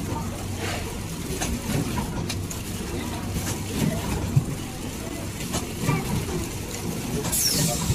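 Tray flow-wrap packing machine running: a steady low mechanical hum with sharp clicks roughly once a second and a short hiss near the end.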